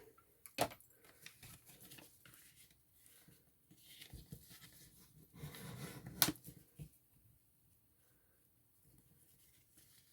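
Faint rustling of paper and card being handled on a craft table, with two sharp taps, one just after the start and one about six seconds in.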